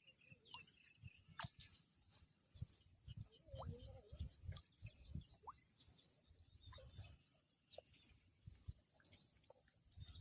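Faint outdoor ambience: scattered small bird chirps and short sweeping calls over a steady high-pitched whine, with soft low thumps underneath.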